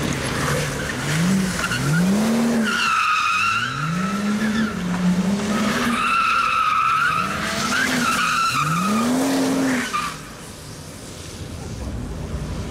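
Car drifting: the engine revs up again and again while the tyres squeal in two long, wavering screeches. About ten seconds in, the squealing stops and the sound drops to a quieter engine note.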